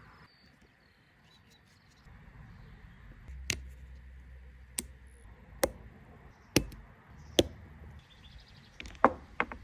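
A series of sharp, separate metal knocks and clicks, about seven spread over several seconds with two close together near the end, from tools and parts being handled while rebuilding a brake caliper, over a low hum.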